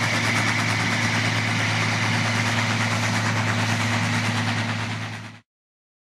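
Fiat 180-90 tractor's diesel engine running steadily while pulling a cultivator through the field. It fades out and stops abruptly about five seconds in.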